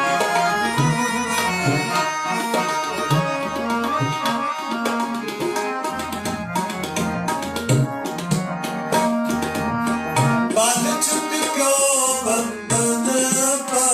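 Tabla and harmonium playing kirtan music: sustained harmonium chords over a steady tabla rhythm, with a bright hiss joining in the last few seconds.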